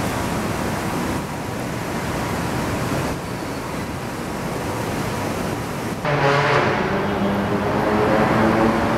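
Steady rush of city street traffic noise. About six seconds in it grows louder, with a low hum and some pitched tones mixed in.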